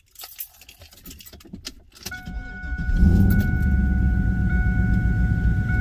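Keys and handling clicks, then a steady electronic chime begins about two seconds in. About a second later the 4th-gen Camaro SS's LS1 V8 starts and runs steadily, its cylinder 5 misfire cured by a new coil harness.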